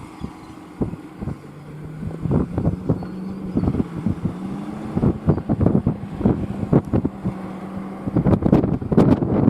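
New Holland T8.360 tractor's six-cylinder diesel engine running under load while ploughing. Its note drops in pitch early on and climbs back a few seconds later. Wind buffets the microphone throughout, heavier near the end.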